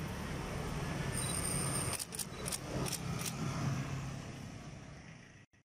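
Engine of a jet-ski-bodied road vehicle running steadily as it drives along the street, with a few sharp clicks about two to three seconds in; the sound fades out near the end.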